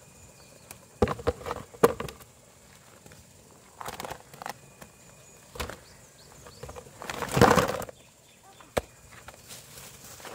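Irregular rustles, snaps and knocks: sharp knocks a second or two in, short rustles after that, and a longer, louder rustle about seven seconds in.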